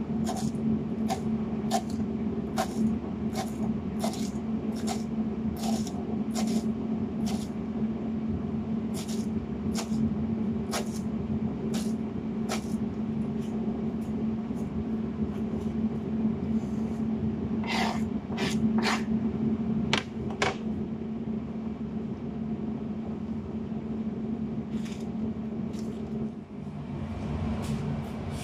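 Kitchen knife chopping fresh parsley on a cutting board, about one and a half chops a second for the first dozen seconds, then a few scattered knocks, over a steady low hum.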